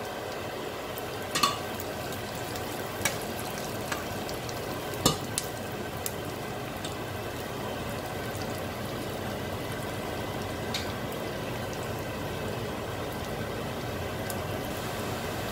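Peanuts, onions and spices frying steadily in oil in a stainless steel saucepan, with a few sharp clinks of a steel spoon stirring against the pan.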